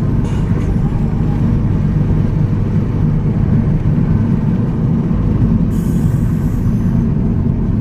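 Steady engine and road rumble inside the cabin of a turbocharged car being driven, with a short high hiss about six seconds in.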